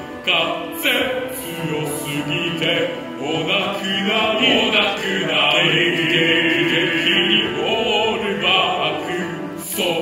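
Two-part male chorus singing in sustained choral style.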